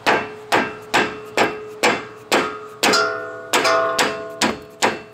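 Hammer blows knocking the old front strut of a Mazda RX8 off the hub, about two strikes a second. Several of the strikes ring on briefly.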